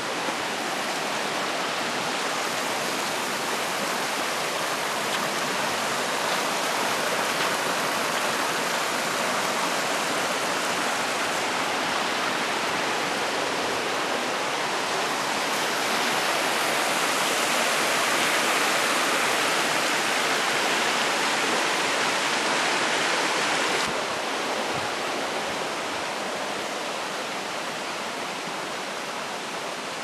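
Flowing water of a mountain stream, a steady rushing hiss. It grows louder through the middle and drops back suddenly about three quarters of the way through.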